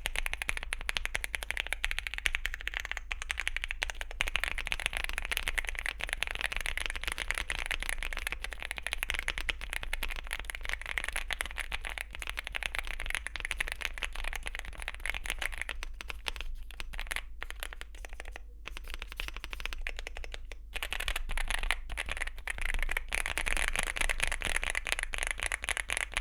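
Rapid typing on a Weikav Lucky65 (Sugar65 V2) mechanical keyboard with factory-lubed Gateron Oil King linear switches and Cherry-profile PBT keycaps: a dense stream of key clacks. A little past the middle it thins to scattered presses with short pauses for a few seconds, then picks up again.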